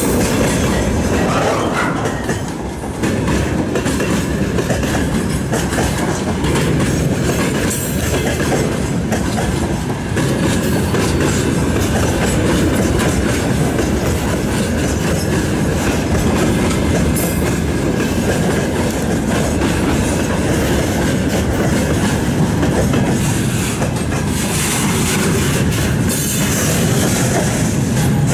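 Loaded freight train wagons, gondolas and flatcars carrying large pipes, rolling past close by: a steady rumble with the wheels clicking over the rail joints.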